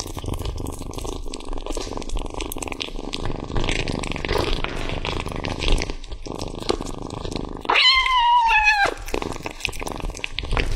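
Kitten eating raw steak: continuous wet chewing, licking and tearing at the meat with many small clicks. About eight seconds in, a short high wavering mew in two parts.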